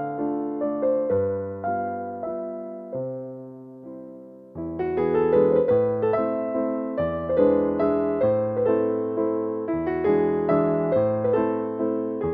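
Background piano music: a slow keyboard melody of struck notes that thins out and fades about two seconds in, then comes back fuller and louder around four and a half seconds in.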